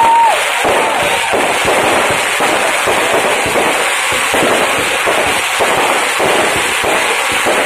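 Fireworks crackling overhead: a dense, unbroken rattle of many small pops. A whistling tone cuts off just as it begins.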